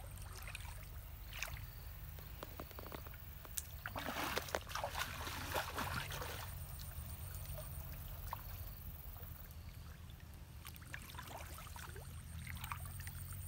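Water splashing and dripping as a person wades waist-deep and lifts and strings a wet fishing net, with a louder stretch of sloshing about four to six seconds in. A steady low hum runs underneath.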